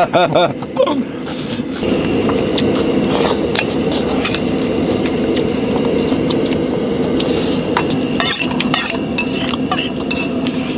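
Metal chopsticks and spoons clinking and scraping against stainless steel bowls and an electric cooking pot during a meal: scattered short clinks over a steady low hum.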